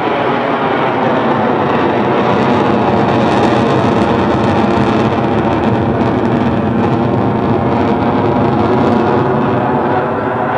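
F-16 Fighting Falcon's Pratt & Whitney F100 turbofan: a loud, steady jet roar as the fighter flies its display turns, with faint tones in it that bend slowly in pitch.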